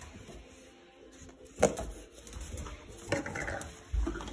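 A sharp knock about one and a half seconds in, followed by softer knocks and scuffling near the end.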